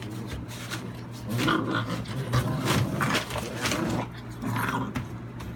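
American Staffordshire bully puppies growling as they play-fight: a long stretch of growling from about a second in, then a shorter burst near the end.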